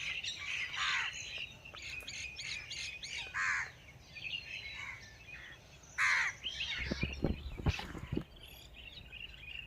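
Several forest birds chirping and calling, with a few harsher, caw-like calls about a second in, around three and a half seconds and at six seconds. A few soft low knocks sound around seven to eight seconds in.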